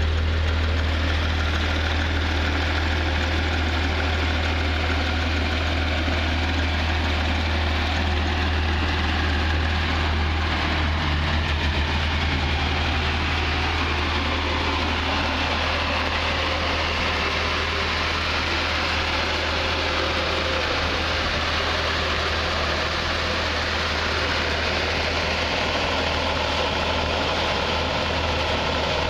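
Porsche 911 GT3's 3.8-litre flat-six engine idling steadily, a constant low hum with no change in revs.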